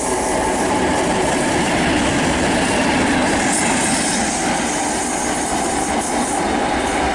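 A pair of Class 37 diesel locomotives passing close by, their English Electric V12 engines running steadily over the noise of wheels on rail.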